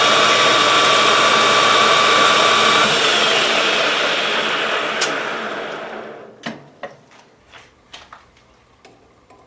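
Metal lathe turning a part with a cutting tool: a steady machine noise with steady tones that stop about three seconds in as the cut ends. The lathe then runs down and falls quiet by about six seconds in, followed by several light clicks and knocks of metal parts being handled.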